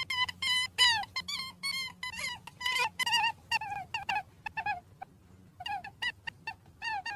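Rabbit squeaking: a rapid series of short, high squeaks, a few each second, some dropping in pitch, with a brief pause about five seconds in.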